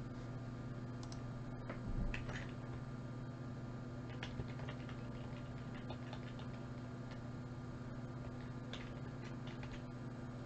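Faint, scattered clicks of a computer mouse and keyboard over a steady electrical hum, with one soft thump about two seconds in.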